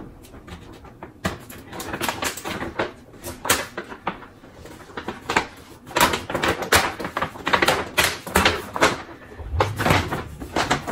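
Paper gift bag rustling and crinkling in irregular bursts as it is opened and a gift is pulled out of it, busier and louder from about six seconds in.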